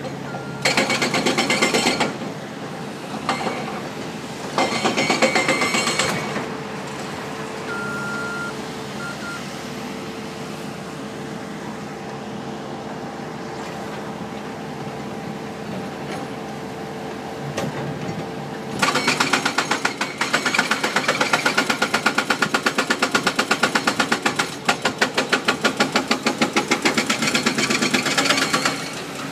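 Surf washing on a beach, with two louder gusts early on, then, about two-thirds of the way in, rapid hammering at about five blows a second: an excavator's hydraulic breaker pounding concrete. The hammering stops just before the end.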